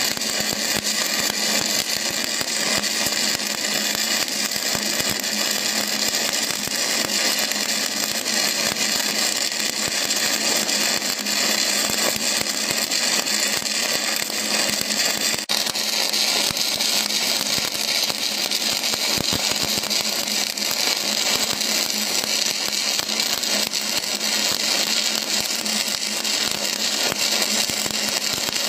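Stick (shielded metal arc) welding with a 427 low-hydrogen electrode: the arc crackles and hisses steadily as a bead is run on a butt joint, turning a little hissier about halfway through.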